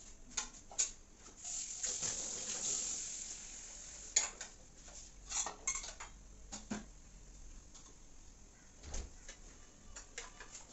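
Dishes, bowls and utensils clinking and knocking at a kitchen counter and sink in scattered, irregular strikes, with a short stretch of hissing noise from about two to four seconds in.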